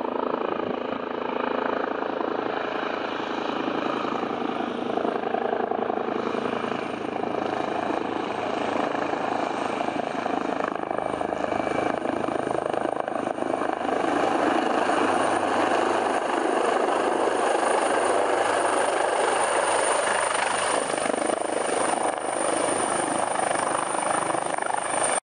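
Helicopter approaching and descending to a hover over a landing pad, its rotor and engine noise steady and growing louder about halfway through.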